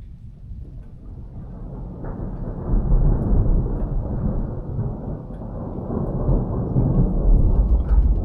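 Rolling thunder: a deep rumble that builds about two seconds in and swells twice, heaviest near three seconds and again near the end.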